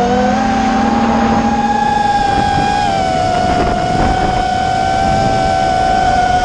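Electric motors of an FPV model aircraft whining at steady high throttle in flight, with several close pitches, over a rush of wind. The pitch dips slightly about three seconds in.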